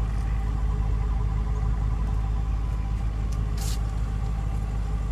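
A car engine idling steadily, heard as a low, even rumble, with a short rustle about three and a half seconds in.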